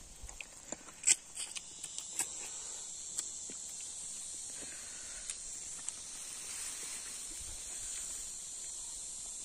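Steady high-pitched drone of insects, with a few short sharp clicks and smacks of eating by hand in the first couple of seconds.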